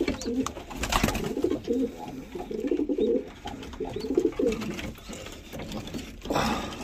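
Domestic pigeons cooing in a loft, a low call repeated over and over through the first four and a half seconds, with a few sharp knocks of handling, one about a second in, and a brief noisy scrape near the end.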